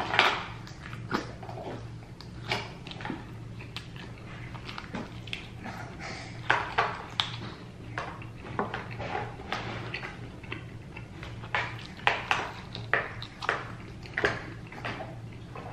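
Close-up eating sounds: irregular wet smacks and crunches of chewing fried chicken wings, with a steady low hum underneath.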